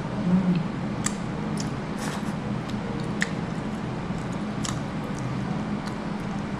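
Wet chewing and squishing mouth sounds of someone eating soft, fatty braised pork leg (pata tim), with scattered light clicks, over a steady low hum.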